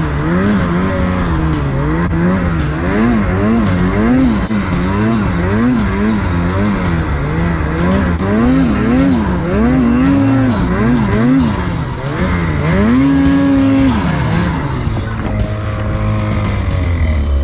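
2023 Ski-Doo Summit Expert Turbo R snowmobile's two-stroke turbocharged 850 engine, revving up and down again and again as the throttle is worked through deep powder. About 13 s in it holds a high rev for a moment, then drops to a lower, steadier note.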